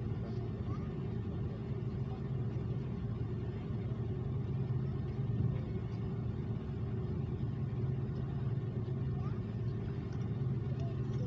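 Steady low rumble of an Airbus A330 airliner heard inside its passenger cabin: engine and airflow noise, even in level throughout.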